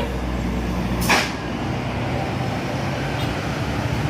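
Tour bus diesel engine running steadily as the bus passes, with one short, sharp air-brake hiss about a second in.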